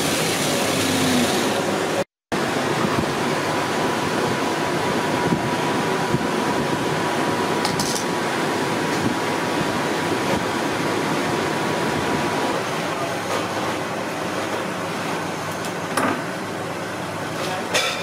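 Steady mechanical hum and hiss of workshop machinery, with a faint high whine for several seconds in the middle and a few light clicks of handled parts near the end.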